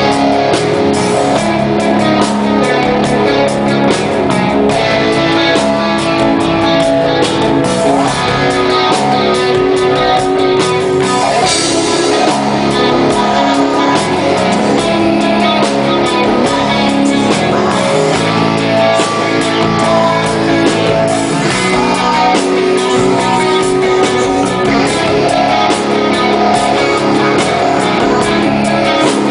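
Rock band playing live, guitars to the fore over a full band with drum hits throughout, at a steady loud level.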